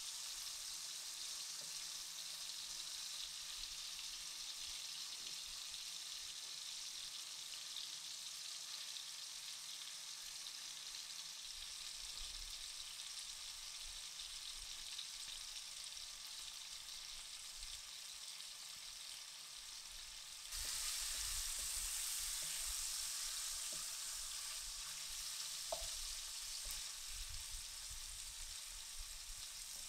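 Spiced paneer cubes shallow-frying in hot vegetable oil in a pan, a steady sizzle, stirred now and then with a wooden spatula that knocks faintly against the pan. The sizzle gets suddenly louder about two-thirds of the way through.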